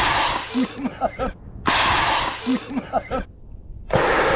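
Inflatable life vest firing its CO2 cartridge when the pull cord is yanked: loud rushes of gas hissing as the vest inflates, heard three times with short breaks between them.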